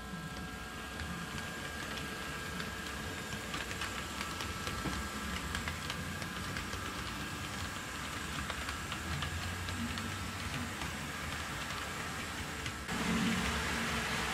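HO scale model locomotives running past on sectional track: a steady electric-motor whine and rumble with many small clicks of wheels over the rail joints. The sound gets louder and hissier about 13 seconds in.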